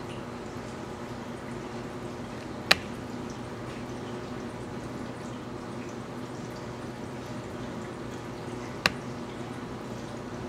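Two sharp clicks about six seconds apart over a steady low hum and hiss.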